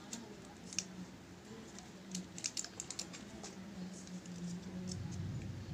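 Scattered light clicks and taps, most of them in a cluster a couple of seconds in, of small hard craft pieces being handled, over a faint low steady hum.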